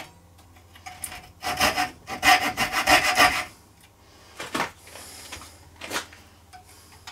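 Coping saw cutting the waste from dovetail pins in a board held in a bench vise: a run of quick rasping strokes starting about a second and a half in and lasting about two seconds. Later come two separate sharp knocks.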